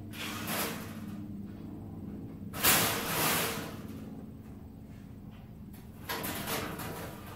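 Three bursts of scraping and rattling from parts being handled on the car, the loudest about two and a half seconds in and lasting about a second, over a steady low hum.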